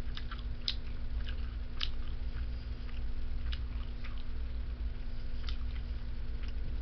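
A man chewing food close to the microphone: scattered small wet mouth clicks and smacks at an uneven pace, over a steady low hum.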